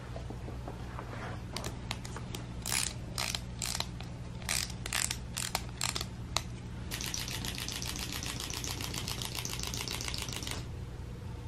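Clockwork of a small wind-up hopping bunny toy: a string of short, irregular rasps, then from about seven seconds in the mechanism runs with a fast, even ticking for about three and a half seconds before stopping abruptly.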